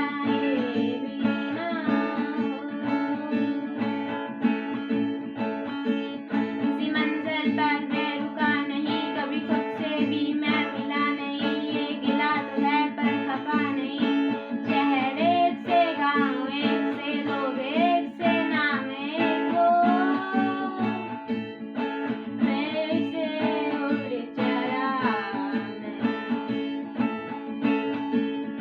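Background music led by a strummed acoustic guitar, with a wavering melody line over it.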